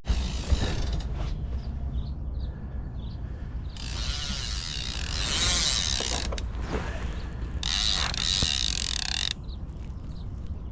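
Fishing reel's clicker ratcheting as a catfish takes the bait and pulls line off. It runs for about five seconds from about four seconds in, easing briefly partway through.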